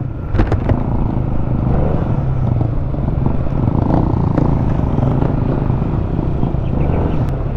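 Motorcycle engine running steadily, with a low rumble.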